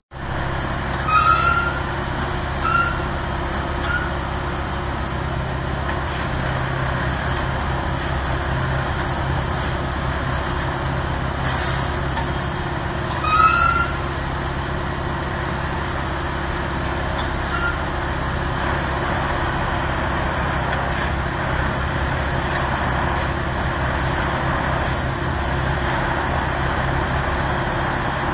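Plasser & Theurer 08-475 Unimat 4S switch-and-crossing tamping machine running with a steady diesel drone and working noise. A few short rising squeals cut through, the loudest about a second in and again around thirteen seconds.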